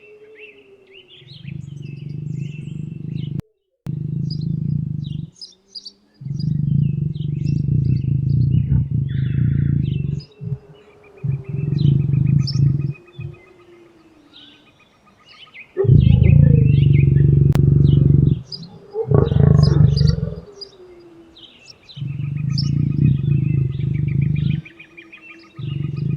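Lion roaring in about eight long, loud, low-pitched bouts of two to four seconds each, with small birds chirping.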